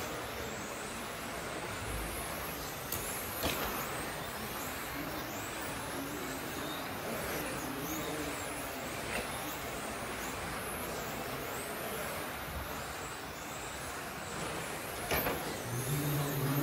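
1:10 electric touring RC cars racing on a carpet track: their motors and gear drives whine high, rising and falling over and over as the cars accelerate and brake, over a steady background hiss. Two sharp clicks stand out, one a few seconds in and one near the end.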